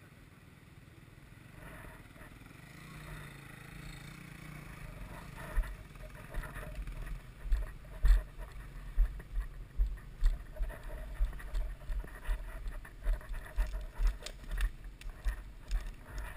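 Low thumps and knocks on a helmet-mounted camera, about two a second, starting around five seconds in, as its wearer moves on foot over leaf-covered woodland ground.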